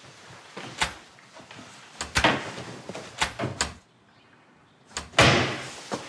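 A series of sharp knocks and clatters of furniture and household things being handled during a search. A quiet gap follows, then a loud door-like bang about five seconds in, with a short ringing tail.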